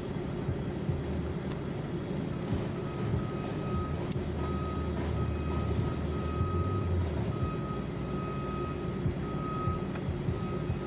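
A New Holland L328 skid steer's backup alarm beeps as it reverses, starting a couple of seconds in and repeating roughly every two-thirds of a second. Underneath is the low, steady rumble of diesel engines running.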